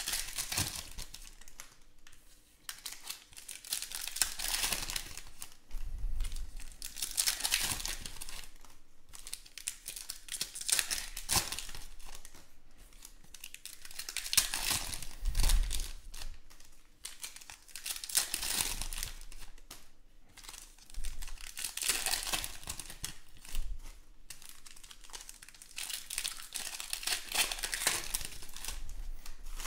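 Foil wrappers of Panini Contenders football card packs crinkling and tearing as they are ripped open and handled, in repeated bursts every few seconds. A couple of soft low thumps come in between.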